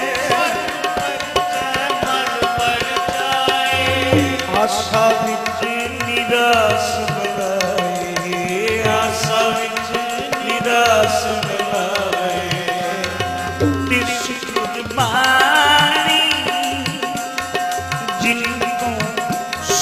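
Sikh kirtan music: tabla playing a rhythm with deep bass-drum strokes under harmonium, whose melody moves over held notes.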